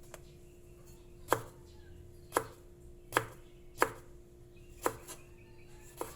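Kitchen knife cutting peeled fresh ginger into thin strips on a cutting board: six sharp knocks, about a second apart.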